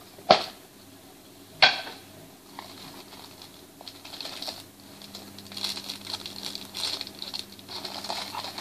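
Two sharp clacks of hard objects knocking in a small box, about a third of a second and a second and a half in, then a steady crinkling rustle of plastic wrap as the wrapped pieces of a sword-care kit are handled.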